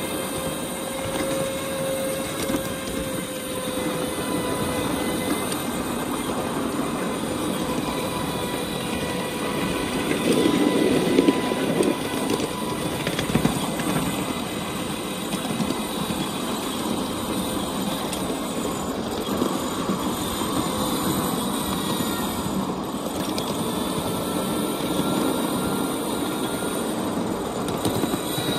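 Electric ride-on miniature railway train running along the track: a steady rolling rattle of wheels on rail with a faint whine from the motor. A louder stretch with a few clicks comes about ten seconds in.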